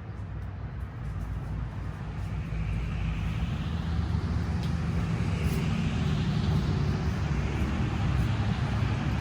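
A motor vehicle's engine rumble, growing louder over the first few seconds and then holding steady.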